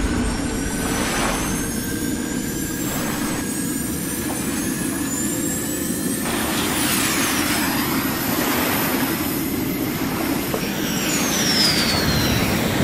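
Steady low rumble like a jet engine, with faint high whistling tones. A high whistle glides downward about seven seconds in, and another near the end.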